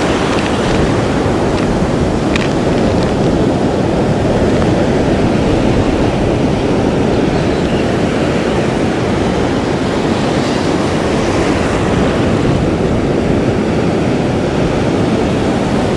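Ocean surf breaking and washing up the beach close by, a steady loud rush, with wind buffeting the microphone.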